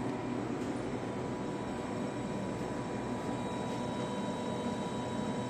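Steady background hum of a convenience store interior, with a faint steady high tone.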